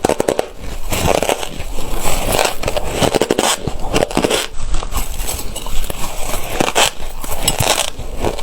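Ice being bitten and crunched between the teeth close to the microphone: crisp crackling crunches in clumps, roughly one bite a second.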